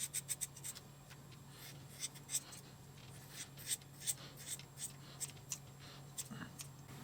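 Light, scattered clicks, taps and rubbing of hands handling small parts and repair materials at a workbench, over a faint steady low hum.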